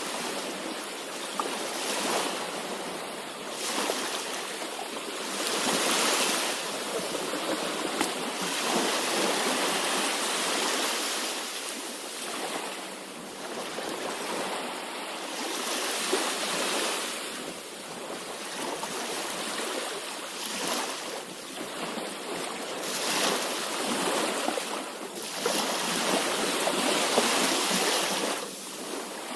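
Sea waves: a continuous rush of surf that swells and eases every few seconds.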